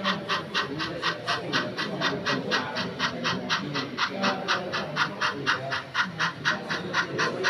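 Sound-equipped model steam locomotive chuffing steadily at about four chuffs a second as it runs slowly, over a low murmur of background chatter.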